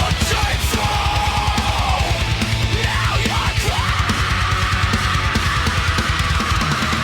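Heavy metal music: a fast, steady drum beat under a distorted lead guitar line that bends in pitch, then holds one high note through the second half.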